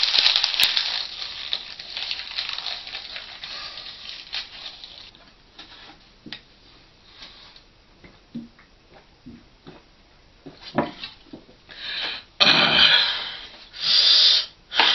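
A paper instruction sheet crumpled up by hand, a loud crinkling that fades over the first few seconds. Then soft swallowing clicks while drinking from a plastic jug, and near the end a few loud gasping breaths.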